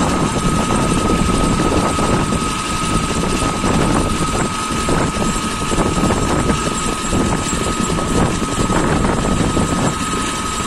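Small engine of a wheeled concrete-pipe cutting machine running steadily at idle, a dense, even chugging with a thin constant whine above it.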